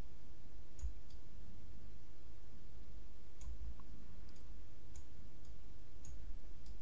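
Several sparse, irregular clicks of a computer mouse while an adjustment brush is worked over a photo in Lightroom, over a steady low hum.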